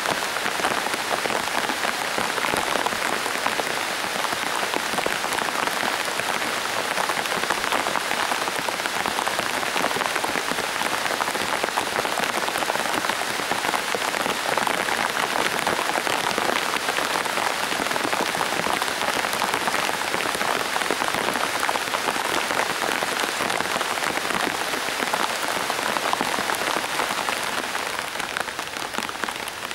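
Heavy rain falling steadily, a dense, even hiss of rain on the ground and vegetation, a little quieter near the end.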